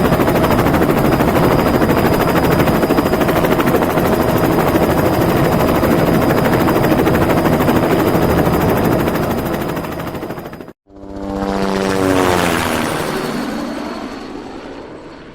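Helicopter rotor and engine running steadily with a fast chopping beat for about eleven seconds. It cuts off abruptly, and after a brief gap a helicopter sound swells and fades away, its pitch falling.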